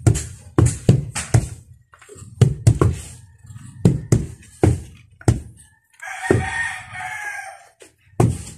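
Wooden hand tampers thudding down on packed soil, irregular heavy thuds about two a second, from two men ramming the ground in turn. About six seconds in a rooster crows once, for about a second and a half.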